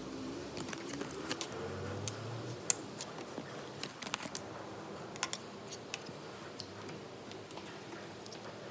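Irregular light clicks and taps, a dozen or so scattered through, over a faint steady background; one sharper click stands out about two and a half seconds in.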